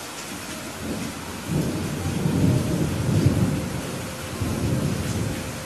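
Steady rain with a roll of thunder that swells about a second and a half in, peaks in the middle and fades away near the end.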